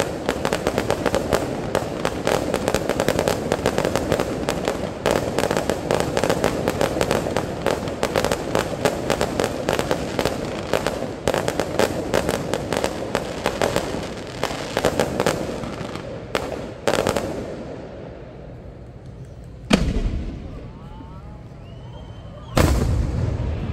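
Aerial fireworks display: a fast, dense stream of crackling reports and bangs for about seventeen seconds, then the firing thins out and two single loud booms go off near the end.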